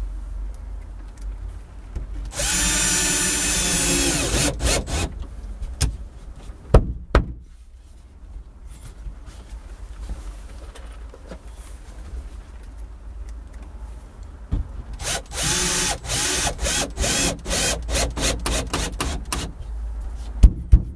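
Electric drill running in two bursts of about two seconds each, one about two seconds in and one about fifteen seconds in, each breaking into short stop-start pulses, with two sharp knocks about seven seconds in.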